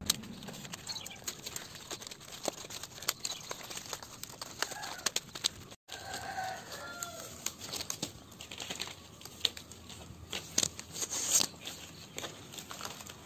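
Dry coconut-palm fronds crackling and rustling as the stiff leaflets are woven and handled, a run of many small sharp cracks, with a short break about six seconds in.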